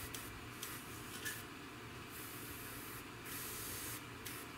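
Airbrush spraying in on-and-off hissing bursts as the trigger is worked: several short puffs, then two longer bursts of about a second each in the second half.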